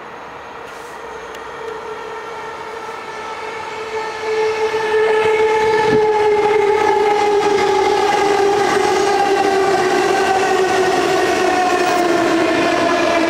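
X60-type electric commuter train approaching and passing close by, its motors whining in several tones that slowly fall in pitch. The sound grows louder over the first five seconds, then stays loud as the cars go past.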